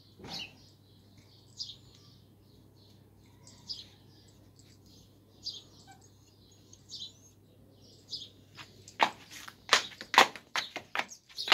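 Small birds chirping at intervals of a second or two. From about nine seconds in there is a quick run of loud, sharp knocks or clatters, several a second.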